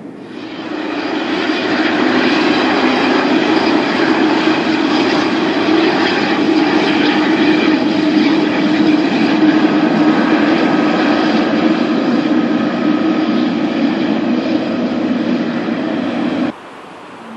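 Boeing 777-300ER's GE90-115B turbofan engines running at power: a loud, steady jet roar with a faint whine. It swells over the first two seconds and cuts off abruptly near the end.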